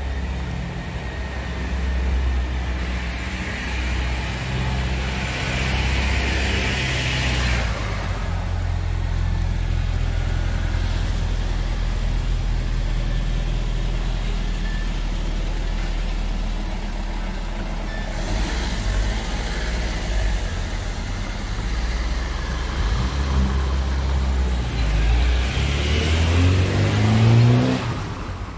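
Street traffic on a wet road: tyres hissing as cars pass twice, over a steady low rumble, and near the end an engine rising in pitch as a vehicle accelerates.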